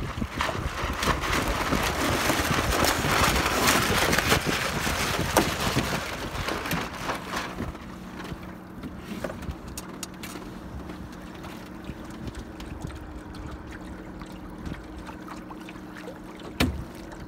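Wind buffeting the microphone and water rushing past a small boat's hull on choppy water, loudest for the first six seconds and then easing. From about eight seconds a steady low hum runs underneath, and a single knock comes near the end.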